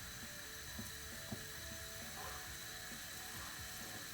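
Olive oil sizzling steadily in a hot frying pan, with a few faint pops.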